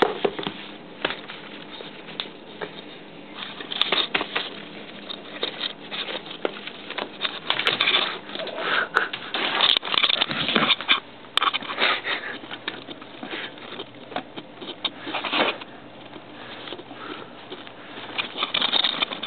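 Cats scrabbling on a tile floor and rustling among a stack of magazines while hunting a mouse: irregular scratches, taps and rustles.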